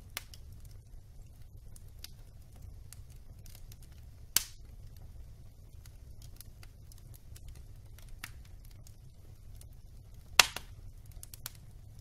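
Wood logs burning in a fireplace, crackling with scattered small snaps over a low steady background. Two loud pops stand out, one about four seconds in and a louder one about ten seconds in, followed by a few smaller crackles.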